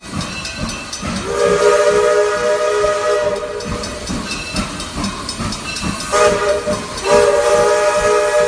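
Nathan K3HA railroad air horn sounding its steady chord twice: a blast of about two seconds starting a second in, and a second blast starting about six seconds in and still going at the end. Air hiss runs under and between the blasts. The horn is blowing at full strength through half-inch ports fitted to give it more air flow.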